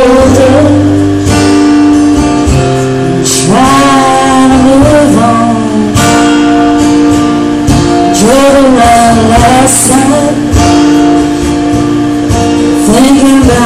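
Acoustic guitar strummed in a live song, with sung phrases coming in every few seconds over the chords.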